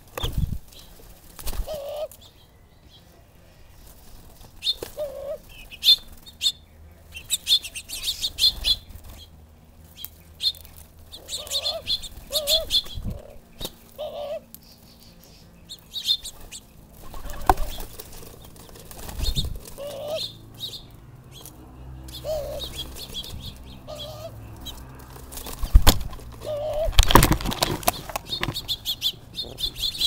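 Wingbeats of doves and house finches landing on and flying off a hanging seed feeder right by the microphone, loudest near the end. Small birds chirp in short bursts throughout.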